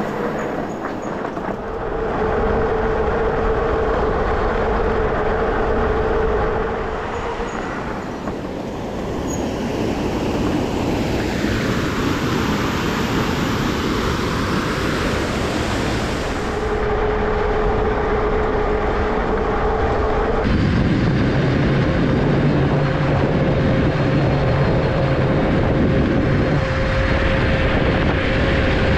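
Electric bike riding: a steady hub-motor whine over tyre and wind noise. From about a third of the way in to a little past halfway the whine gives way to the rushing of water pouring through a canal lock. The riding sound then returns with a slightly higher whine and a deeper hum under it.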